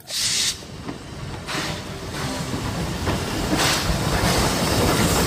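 Steam locomotive running, with a few bursts of steam hiss over a low rumble of the train that grows louder toward the end.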